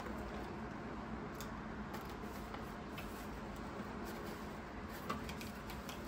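Clear plastic packaging around a doll's dress being handled and unwrapped, with faint crinkling and small clicks over steady room hiss, and one sharper click about five seconds in.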